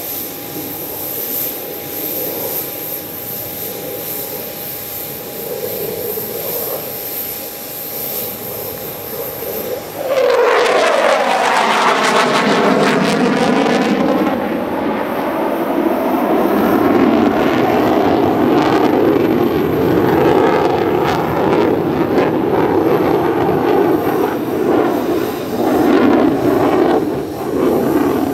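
Sukhoi Su-30MKM's twin jet engines: steady, moderately loud jet noise. About ten seconds in it becomes suddenly much louder, with a sweeping whoosh that falls in pitch, and stays loud.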